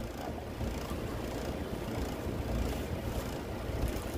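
Rustling and rubbing as hands smooth a large, freshly unrolled diamond-painting canvas flat on a cloth-covered table, over a steady low rumble.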